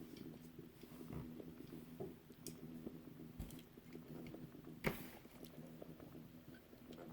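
Faint small clicks, taps and crinkles of a 1/64-scale diecast car and its plastic packaging being handled, with one sharper click about five seconds in, over a low steady hum.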